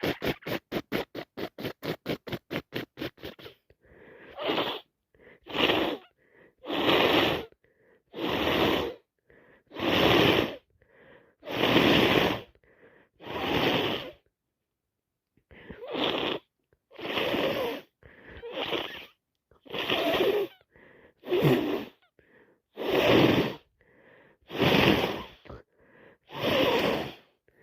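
Rapid rubbing of a handkerchief against a nose, about six strokes a second, stopping about three and a half seconds in. Then a person with a heavy cold breathes hard through a congested nose into the handkerchief: a run of short, noisy nasal blasts about every second and a half, with one pause of about a second and a half in the middle.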